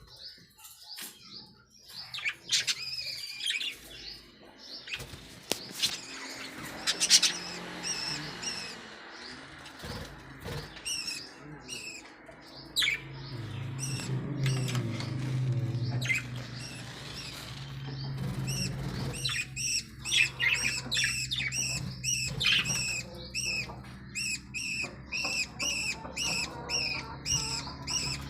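Budgerigars chirping and chattering, with quick chirps coming thick and fast in the second half and a low steady hum in the middle.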